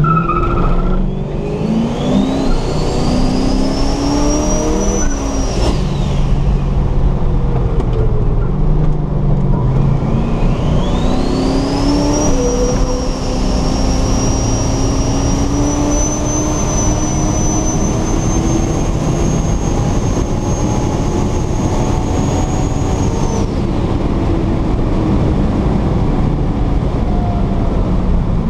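Rear-mounted turbocharged race car at full throttle, heard from inside the cabin with wind rushing in through an open rear window. A high turbo whine rises with the revs twice: a short pull that climbs and falls in the first few seconds, then a long pull from about ten seconds in that climbs, holds high and cuts off suddenly about two-thirds of the way through.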